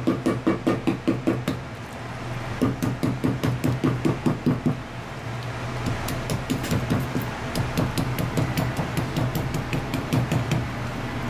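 Kitchen knife striking and scraping rapidly on a plastic cutting board while trimming a fish fillet, about five or six strokes a second, with short pauses about two seconds in and again around five seconds in. A steady low hum runs underneath.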